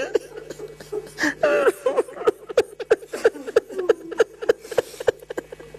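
A man sobbing: short, broken cries and sharp catching breaths, over and over, with the loudest cries about a second and a half in.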